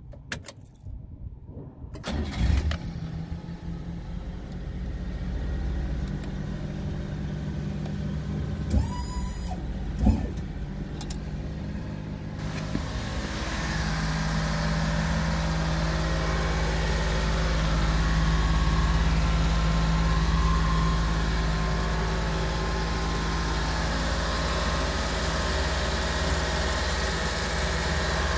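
Japanese mini truck's small gasoline engine starting about two seconds in, then idling steadily. There are two sharp knocks around nine and ten seconds in, and a steady hiss joins the idle from about twelve seconds on.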